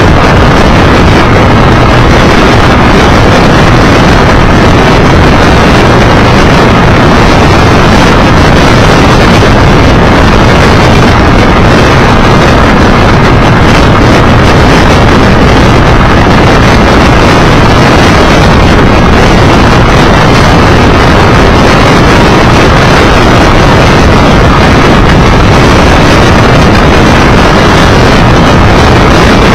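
Steady rush of wind buffeting the microphone of a motorcycle-mounted camera at about 70 km/h, mixed with engine and tyre noise. The sound is constant and very loud throughout, near the recording's maximum level.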